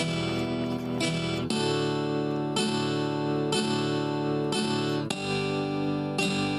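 Background music: acoustic guitar strumming a chord about once a second.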